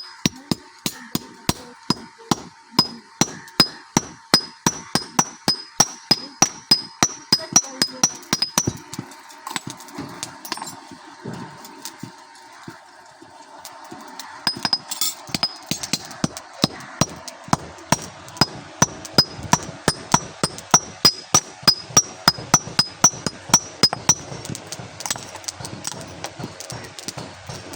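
Blacksmith's hammer striking metal on an anvil in a steady rhythm, about three ringing blows a second. The hammering stops for several seconds about a third of the way in, then resumes and fades to lighter taps near the end.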